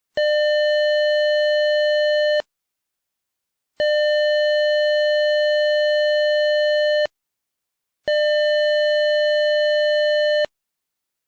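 Doorbell circuit's electronic buzzer sounding a steady, buzzy mid-pitched tone three times, each held for two to three seconds with silence between.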